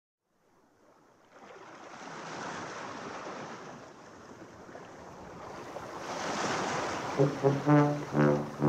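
Recorded sound effect of sea surf, washing in and swelling twice as the song's intro. About seven seconds in, brass instruments come in with a run of short, loud notes.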